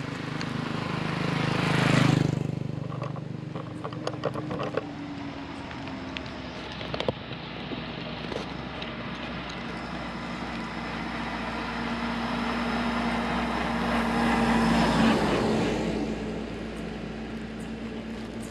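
Road traffic passing close by: a motorbike's engine swells and goes past about two seconds in, then a second vehicle approaches with a steady engine tone, growing louder to pass near the end and fading away. A few small clicks fall between the two.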